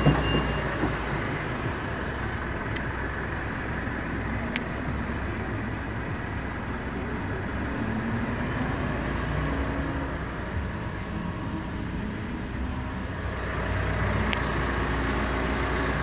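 A steady low background rumble with a few faint clicks as the doors of a Mitsubishi Triton ute are unlatched and swung open.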